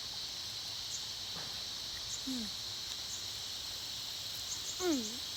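Steady insect chorus: a continuous high-pitched chirring that does not let up.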